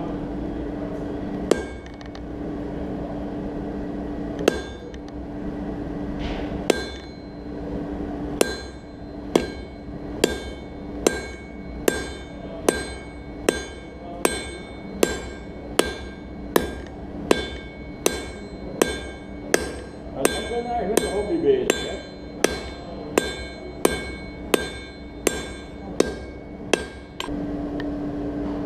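Blacksmith's hand hammer striking steel on an anvil, each blow ringing: a few spaced blows, then a steady run of about one blow every 0.8 seconds. A steady hum underneath at the start stops as the steady hammering begins and returns near the end.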